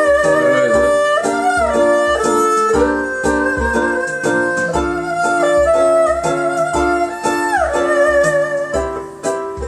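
Erhu playing a bowed melody of long held notes with pitch slides, over a backing track with a steady beat and held chords.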